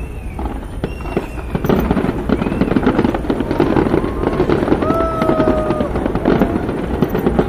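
Fireworks show exploding in a rapid, dense crackle of bangs that grows louder about two seconds in.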